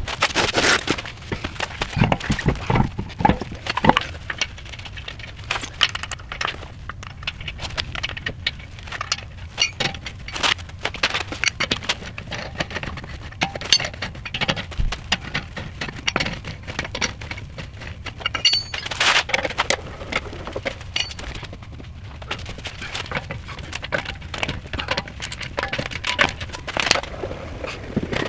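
Irregular metallic clinking and rattling, many small sharp clicks in quick succession, from metal tools or parts being handled.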